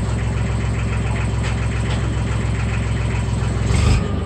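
Tractor engine idling steadily, with a brief rise in level near the end.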